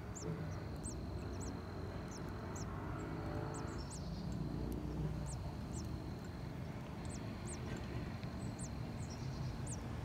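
Hungry nestlings in the nest begging with thin, very high peeps, short sliding notes repeated about once a second, over a low background rumble.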